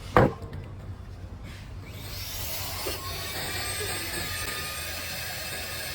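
A sharp click near the start, then a small cordless car vacuum cleaner's motor spins up about two seconds in and runs steadily with a high whine and hiss.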